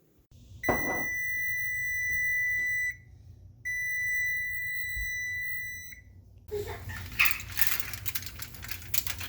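An electronic beeper sounds two long, steady, high-pitched beeps of a little over two seconds each, about a second apart. A clattering noise follows in the last few seconds.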